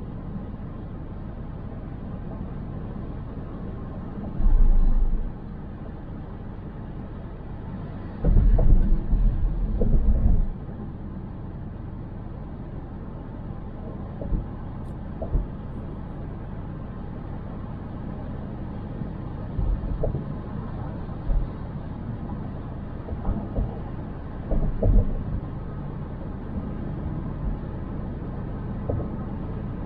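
Road noise of a car driving through city streets: a steady low rumble of tyres and engine. It swells into louder low surges about four seconds in and again from about eight to ten seconds in, with a few small knocks later on.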